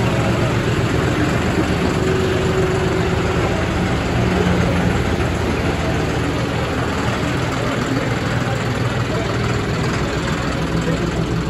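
John Deere 5405 tractor's three-cylinder diesel engine running steadily at low revs as the tractor is driven slowly.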